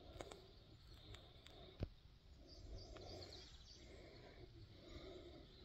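Near silence: a faint background hiss with a few faint ticks and one sharp click a little under two seconds in.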